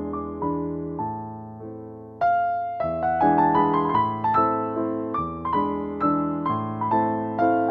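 Background piano music: chords and single notes struck and left to fade, growing louder about two seconds in.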